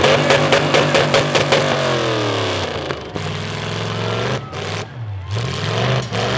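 Demolition derby car engines revving and falling back, their pitch sliding up and down, with a rapid run of sharp popping pulses in the first second and a half.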